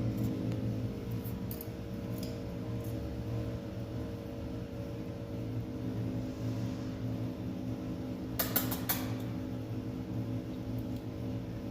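A steady low mechanical hum, with a brief cluster of sharp clicks about eight and a half seconds in.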